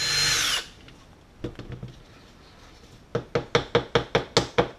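A cordless drill runs in a short burst, its whine dropping in pitch as it stops. After a couple of faint knocks, a quick even run of about eight sharp knocks follows, roughly five a second.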